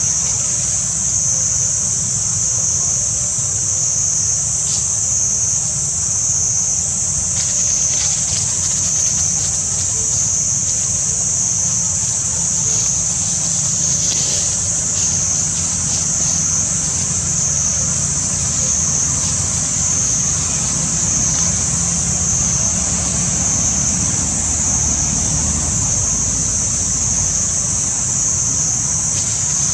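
A steady, high-pitched insect drone that wavers slightly, over a constant low rumble, with a few faint rustles of dry leaves.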